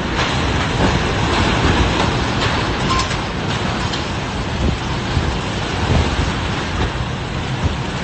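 Typhoon wind and driving rain: a loud, steady rush of noise.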